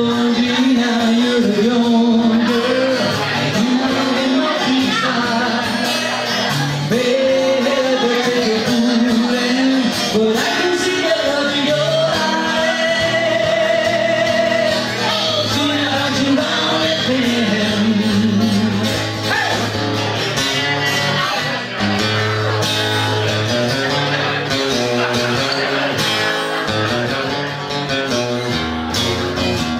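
A man singing a rockabilly song live while strumming an acoustic guitar.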